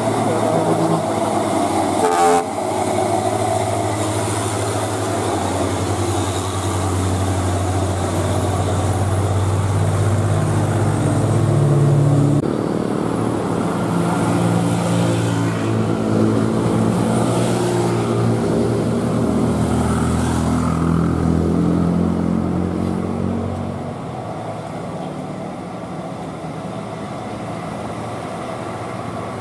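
Diesel engines of loaded Hino 500 dump trucks labouring up a hill, a steady low drone. There is a sharp click about two seconds in, the engine sound changes abruptly around twelve seconds, and it grows quieter near the end.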